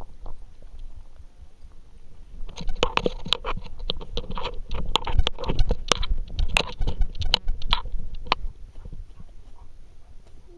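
A camera strapped to a dog's harness, rubbing and jostling with the dog's movement as a low rumble, with a dense run of crunching clicks from about two and a half to eight and a half seconds in.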